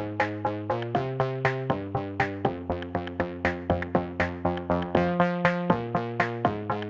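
Background music: an electronic track with a synthesizer playing quick, evenly repeated notes, about four a second, with the chords changing every second or so.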